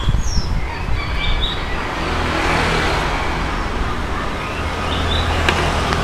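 Road traffic: a vehicle going past, its noise swelling to a peak midway and easing off, over a steady low hum. A few short bird chirps come near the start and again near the end.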